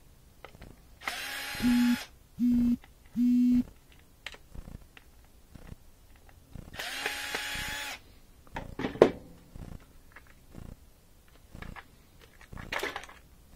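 Cordless drill-driver backing screws out of a washer drain pump's metal bracket. The motor runs about a second in, then gives three short bursts, and runs again around seven seconds in. After that come clicks and clatter of the parts being handled, with one sharp knock about nine seconds in, the loudest sound here.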